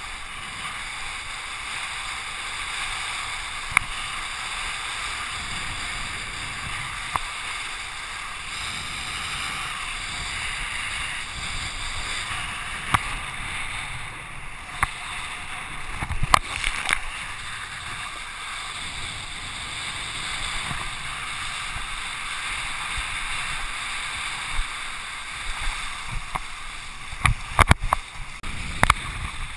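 Steady rush of wind and water as a kiteboard planes across choppy water, broken by sharp slaps and knocks from the board and spray hitting chop, several in quick succession near the end.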